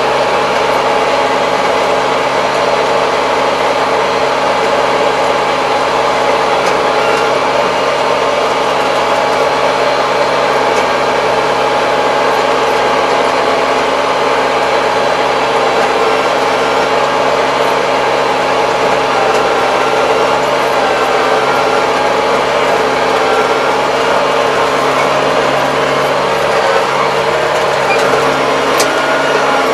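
Kubota 75 hp tractor's diesel engine running steadily, heard from inside the closed cab.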